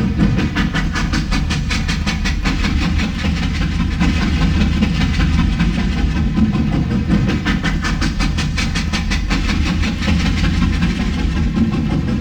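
Steam train running steadily with a fast, even rhythmic beat.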